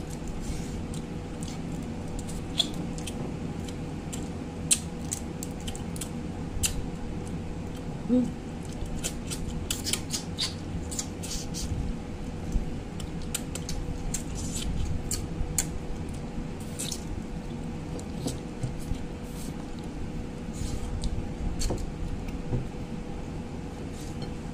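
Eating by hand: crab being picked apart and chewed, with many quick sharp clicks and smacks, densest through the middle, and a few louder knocks. Under it runs a steady low hum with a faint constant tone.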